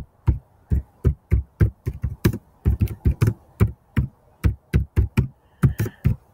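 Typing on a computer keyboard: single keystrokes clicking at an uneven pace of about three or four a second.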